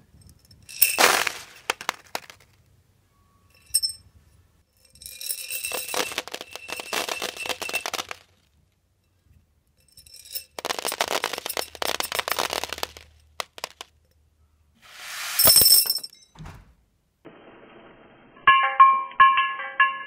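Small pills dropping into a glass, clinking and rattling in four separate pours: a short loud one about a second in, two longer rattles of a few seconds each, and a sharp burst about three-quarters through. Plucked-string music comes in near the end.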